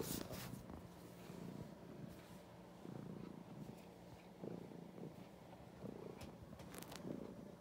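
Domestic cat purring, a faint, steady, pulsing purr with the cat right against the microphone: a contented purr. A few soft rubbing noises of fur against the phone come through near the start and near the end.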